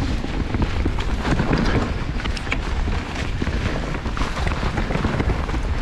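Commencal Meta AM mountain bike descending a dirt trail: wind buffeting the microphone over a low rumble of tyres on the ground, with frequent small clicks and rattles from the bike.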